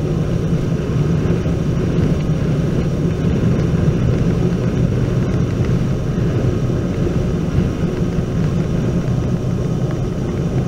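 Steady low drone of engine and tyre noise from a vehicle driving along a snow-covered highway.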